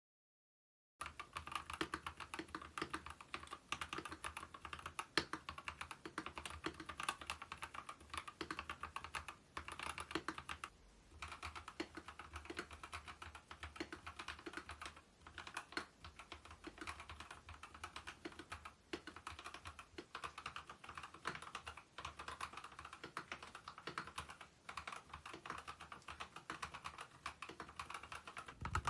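Typing on a Kemove K87 1980 mechanical keyboard: a fast, continuous run of keystroke clacks. It starts about a second in and briefly pauses once near the middle.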